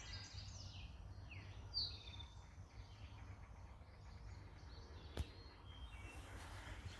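Birds chirping faintly in short, falling calls over a steady low rumble, with a single click about five seconds in.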